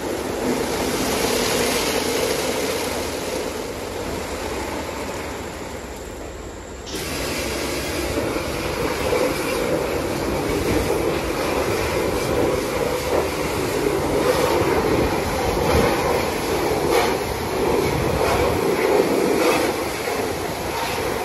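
Christ Genius Vitesse C160 rollover car wash working on a car: steady rushing water and machinery. The sound dips about six seconds in, then starts again with a low motor hum and repeated light knocks.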